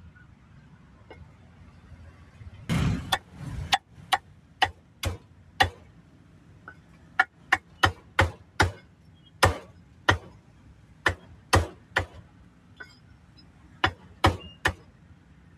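A cleaver chopping meat on a chopping block: a brief rushing noise about three seconds in, then about twenty sharp chops at an uneven pace, with a short pause partway through.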